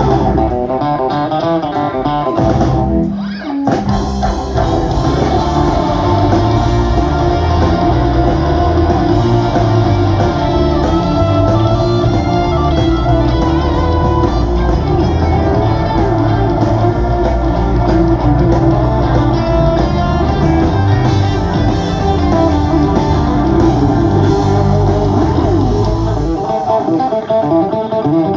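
A rock band playing live, heard from the audience over the PA: electric guitars over bass and drums. The band breaks off briefly about three seconds in, then comes back in full.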